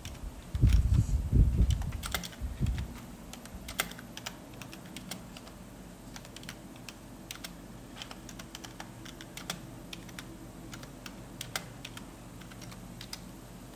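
Colored pencil drawn in short shading strokes across paper, giving irregular scratchy ticks and clicks. Heavy low thumps against the table come in the first few seconds.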